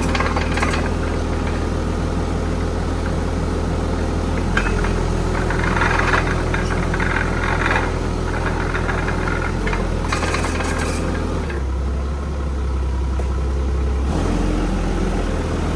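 A heavy-equipment engine running steadily at idle. Its speed shifts about four and a half seconds in and again a few seconds before the end, with brief rattly noise over it in between.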